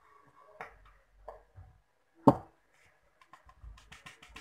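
A few light knocks and then one sharp, loud knock about two seconds in, as a plastic bowl of flour is tapped against the rim of a stand mixer's steel bowl while the flour is tipped in.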